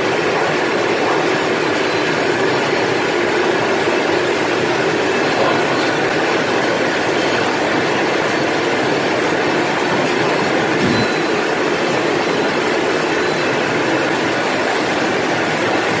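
Electric carrot washing and peeling machine running steadily: a continuous loud mechanical churn of the machine mixed with water spraying onto the carrots as they tumble in the trough.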